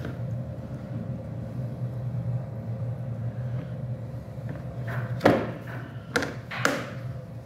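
A steady low machine hum, with three sharp knocks a little after five seconds in, spread over about a second and a half, the first the loudest.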